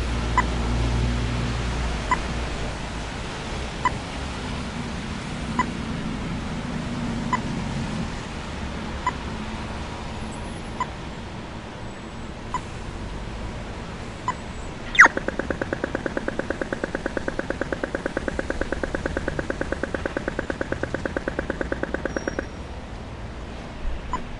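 Audible pedestrian crossing signal at a traffic light: a short locator beep about every second and three quarters, then, about fifteen seconds in, a click and a fast rapid ticking for the walk phase that runs for about seven seconds before the slow beeps return. A low traffic rumble sits underneath at the start.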